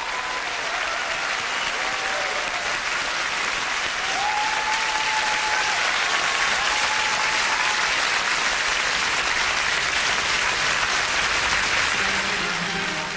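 Large concert audience applauding steadily, growing a little louder about four seconds in.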